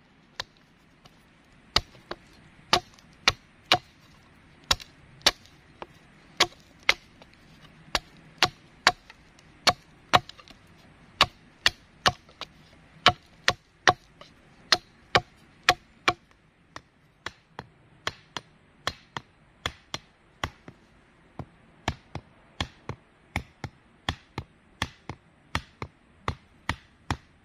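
Hatchet chopping a point on a wooden stake against a log, sharp wooden strikes about two a second. About two-thirds of the way through the strikes turn quieter and duller, as the stake is driven into the ground with the hatchet.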